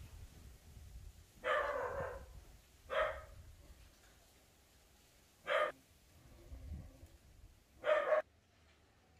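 Dog barking: four short barks a few seconds apart, the first one longer than the rest.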